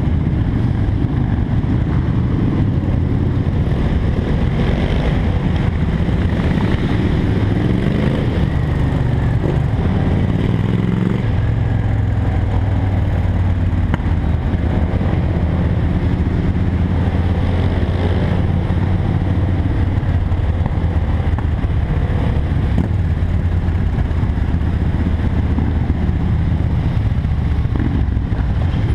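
Motorcycle engines running at low revs during slow group riding: the BMW F800GS's parallel twin close to the microphone, with other motorcycles alongside. The engine note rises and falls about a third of the way in, then runs steadily.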